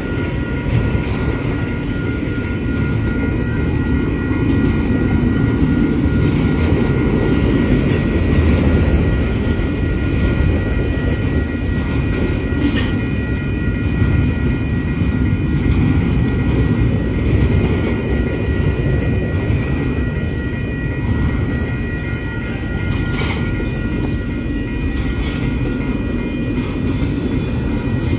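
Loaded double-stack container well cars rolling past at steady speed, a continuous low rumble of steel wheels on rail with a few sharp clanks. Over it, the grade-crossing warning bell rings steadily.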